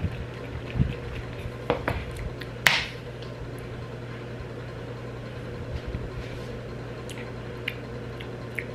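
A plastic shaker bottle's flip-top cap clicks open, with the sharpest click a little under three seconds in. Quiet drinking from the bottle follows, against a steady low hum.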